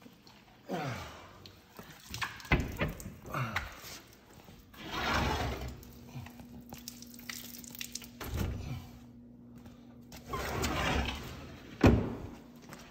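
Snake enclosure doors and tubs being handled: a run of knocks and thuds, the sharpest near the end, between longer swells of rustling and sliding.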